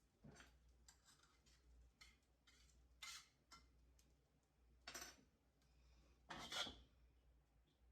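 Faint, intermittent rubbing and scraping, a handful of short strokes, the strongest about five seconds in and again around six and a half seconds.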